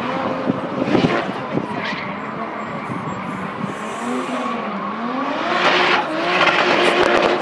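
Car spinning doughnuts, its engine revving up and down with tyres screeching in surges, loudest in the second half as the revs climb and hold.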